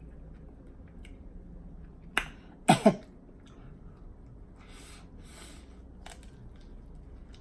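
Eating mouth sounds: faint smacking and chewing, with a sharp click about two seconds in and, just after, a short loud throat sound with two pulses, like a cough or a burp. A breathy hiss follows about two seconds later.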